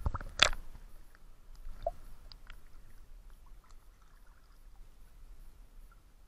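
Lake water splashing around a camera as it comes up through the surface: one sharp splash about half a second in, a smaller one near two seconds, then faint lapping and dripping.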